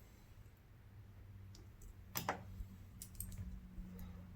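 A few faint clicks and ticks of small hand tools working on a smartphone's frame, the sharpest about two seconds in, over a faint steady low hum.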